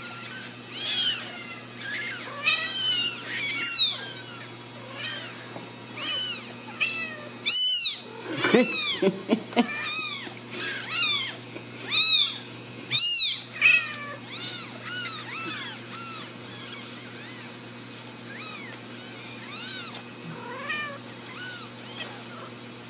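Very young Ragdoll kittens mewing over and over in short, high calls that rise and fall, sometimes overlapping. The calls are loudest and most frequent in the middle and grow sparse and fainter toward the end.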